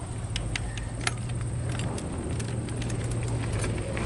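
Scattered light metallic clicks and ticks of hand tools working on a mountain bike's rear derailleur, which had been found loose, over a steady low hum.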